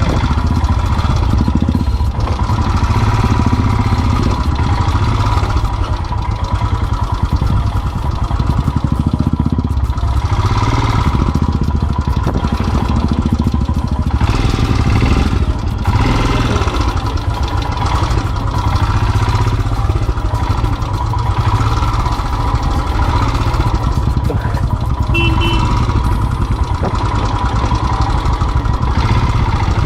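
Single-cylinder Royal Enfield motorcycle engine running steadily at low revs, a continuous thumping rumble.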